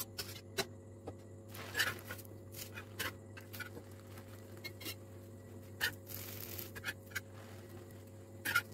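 Metal knives and a steel spatula clicking and scraping against a griddle pan as a bread sandwich is set down and turned, with a brief hiss about six seconds in, over a steady low hum.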